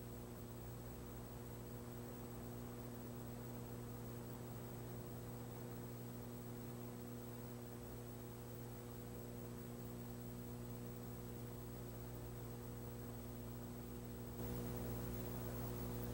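Steady electrical mains hum with a faint hiss from an old videotape recording, with no track sound from the horses or the starting car; the hiss grows slightly louder near the end.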